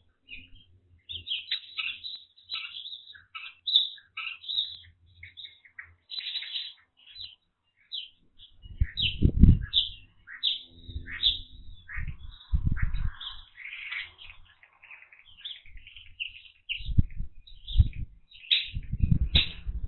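Small songbirds chirping and calling in quick, busy runs throughout. Several low rumbling thumps break in, the loudest about nine seconds in and again near the end.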